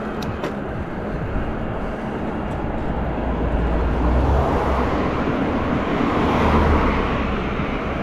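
Wind rushing over the microphone of a moving electric mountain bike on an asphalt road, with low buffeting that builds louder from about three seconds in, mixed with tyre noise and the sound of oncoming cars.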